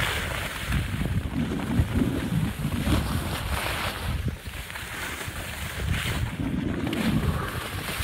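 Skis scraping and carving on chopped-up piste snow, a hiss that swells with each turn every couple of seconds, over wind rushing on the microphone.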